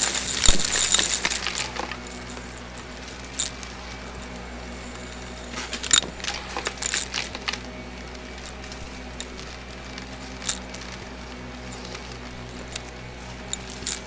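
Shark upright vacuum cleaner running over carpet with a steady hum, sucking up sequin and glitter confetti that rattles and clicks through it. The rattling is heaviest in the first second or two and again around six to seven seconds in.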